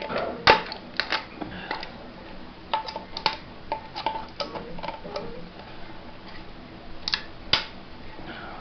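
Irregular clicks and snaps of plastic support material being broken and peeled off a 3D-printed part by hand, the sharpest snaps about half a second in and near the end.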